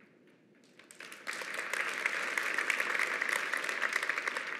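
Audience applauding, with the clapping starting about a second in and fading out near the end.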